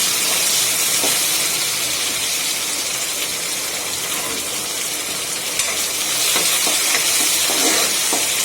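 Onions, garlic and curry leaves frying in hot oil in a kadai, a steady sizzle as they are left to brown during the tempering for the kuzhambu.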